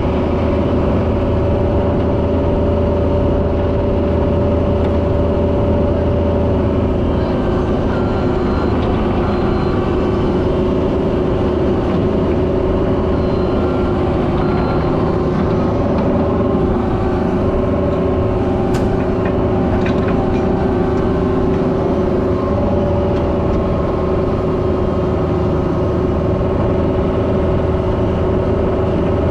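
Cat 304 mini excavator's diesel engine running steadily under work, with a constant hum and steady whining tones over it.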